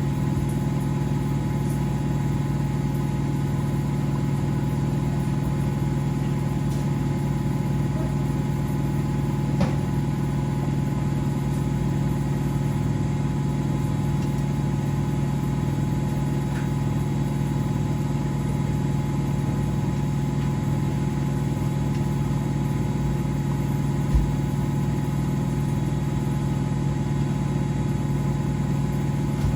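Domestic washing machines and tumble dryers running: a steady, even motor hum. One light click about a third of the way in and a short low thump later on.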